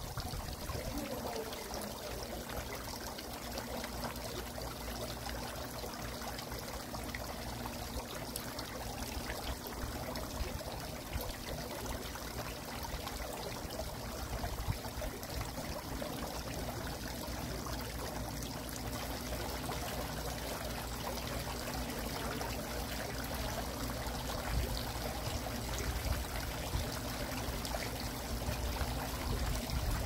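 Tiered garden fountain, water pouring and trickling steadily from the top spout into the bowls below.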